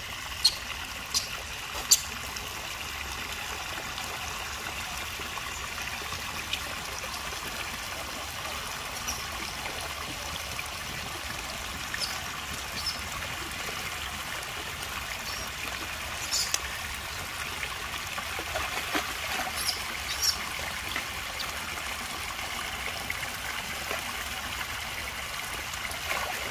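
Water trickling steadily into a muddy rock pool. Short splashes and taps come now and then as macaques dip their hands into the water: three near the start and a few more past the middle.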